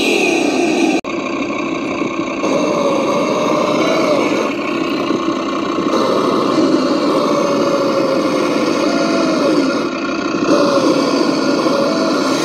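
Axial SCX10 scale RC crawler's engine sound module playing a simulated engine, revving up and down as the truck works through mud. There is a brief dropout about a second in.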